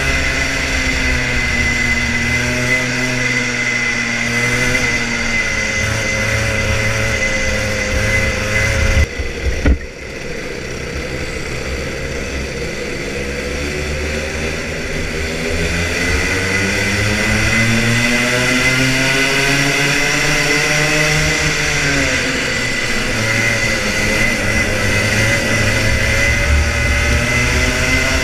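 Rotax Junior Max 125cc two-stroke kart engine heard onboard, revving up and down through the corners, with its note climbing for several seconds in the second half before it lifts and picks up again. A steady high whine runs under it, and a couple of sharp knocks come about nine to ten seconds in.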